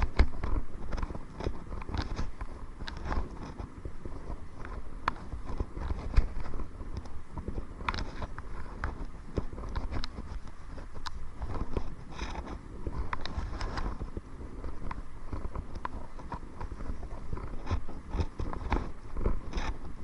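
Kayak paddling into the wind: irregular clicks, knocks and splashes from the paddle and hull, over a low rumble of wind buffeting the microphone.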